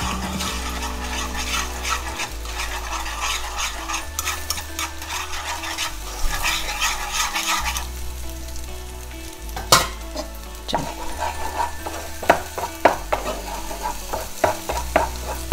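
Beaten egg sizzling in hot oil in a frying pan while a metal spatula stirs it and breaks it into scrambled pieces, with repeated sharp scrapes and clicks of the spatula against the pan that come thicker in the second half.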